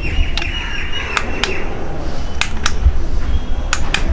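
Several sharp plastic clicks as a portable electric tyre inflator is handled and its controls pressed, over a low rumble; the inflator's motor stays silent, not starting.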